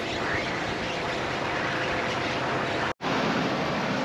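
Semi-truck driving over a snow-packed lot: a steady rush of engine, tyre and wind noise with a faint engine hum. The sound breaks off for a split second about three seconds in, then the same kind of steady vehicle noise goes on.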